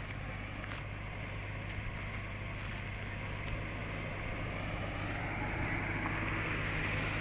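A steady low engine-like hum, with a rushing noise that grows louder toward the end.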